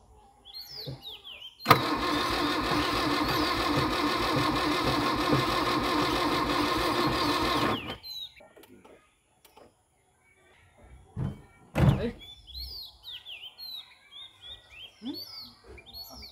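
Toyota Corolla KE36 engine turning over on a first start attempt after years of standing: a loud, steady mechanical whir that starts suddenly about two seconds in and cuts off after about six seconds. A single sharp knock follows a few seconds later.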